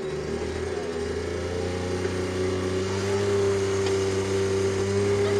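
Puch E50 50cc single-cylinder two-stroke moped engine running with the throttle opened, its revs climbing a little over the first couple of seconds and then holding steady.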